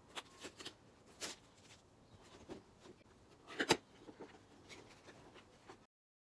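Cardboard doll box being handled and opened by hand: faint rubbing, scraping and light taps of the flaps and card, with one sharper tap about three and a half seconds in. The sound cuts off suddenly near the end.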